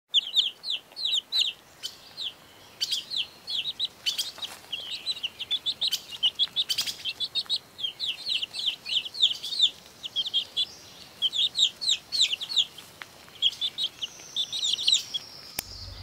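Newly hatched chicks peeping: runs of short, high-pitched, downward-sliding cheeps, several a second, broken by brief pauses.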